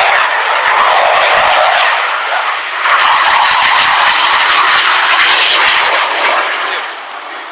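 Loud roar of a military aircraft passing low overhead. The roar dips briefly about two and a half seconds in and fades near the end.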